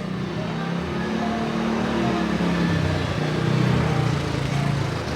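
A motor vehicle engine running, growing louder to a peak a little past the middle and then easing off.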